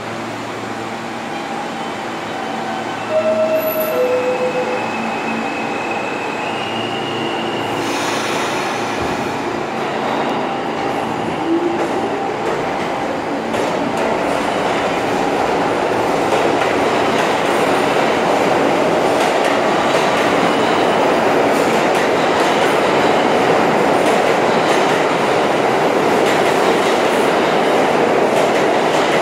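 R160 subway train at a platform: a two-note falling door chime about three seconds in, then the train pulls out. Its traction motors whine as it gathers speed, and the wheels clatter and squeal as the cars run past.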